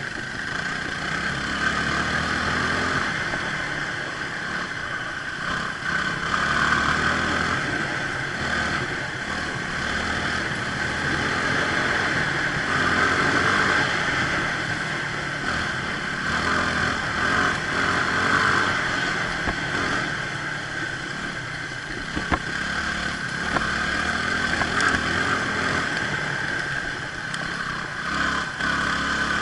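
Motorcycle engine running steadily while riding, with the level rising and easing a little as the throttle changes.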